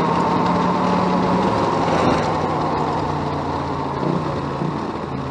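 212 cc single-cylinder go-kart engine running at high speed with a steady drone that dips a little in pitch and fades slightly toward the end. The engine is on its last leg: leaking oil and down on top speed.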